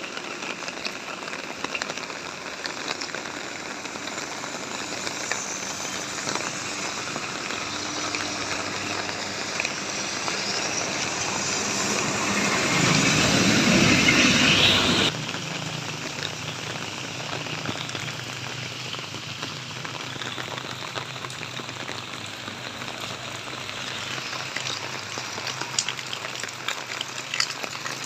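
Steady rain falling. Partway through, a louder rushing noise swells up over several seconds and cuts off suddenly, and a faint low hum follows.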